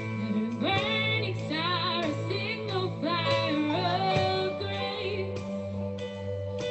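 A woman singing a slow song with vibrato over sustained instrumental accompaniment.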